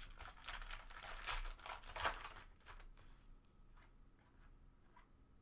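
Foil wrapper of a 2018 Panini Diamond Kings baseball card pack crinkling and tearing as it is opened, followed by quieter flicks and rustles of the cards being handled. The crinkling is densest in the first two and a half seconds.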